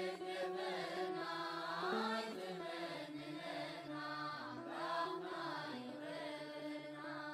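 Music: a slow, chant-like song, with long wavering sung notes over steady held accompaniment.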